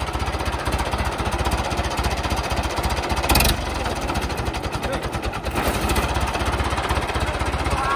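David Brown 995 tractor's diesel engine idling with a fast, even knocking beat, with one brief louder thump about three and a half seconds in.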